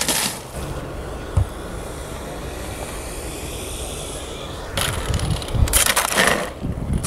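A brief loud knock at the start, then the faint wavering whine of a radio-controlled biplane's motor as it comes in, followed by clattering and scraping as the model plane hits the asphalt road and tips over, with wind thumping on the microphone.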